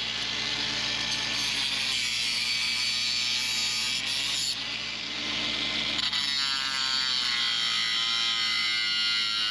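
Power tool cutting, a steady buzzing run whose pitch wavers up and down in the second half as the cut loads it.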